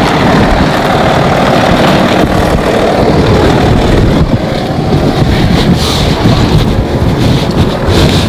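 Loud, steady rumbling noise, most likely wind buffeting the microphone outdoors.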